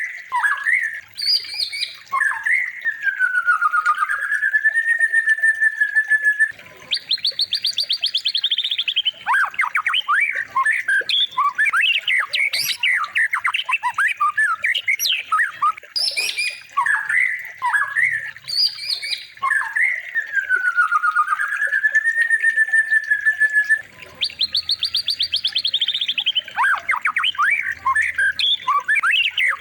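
Recorded songbird song played as a training loop: a long whistle that dips and rises, a fast high trill, then a run of sharp chattering calls and chirps. The same phrase comes round again about every 16 seconds.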